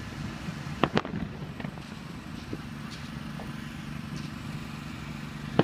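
Fireworks going off: two sharp bangs close together about a second in, a few fainter pops, and a loud bang at the very end, over a steady low hum.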